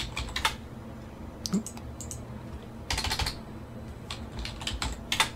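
Typing on a computer keyboard, mixed with mouse clicks: scattered single keystrokes, with a quick run of several about three seconds in.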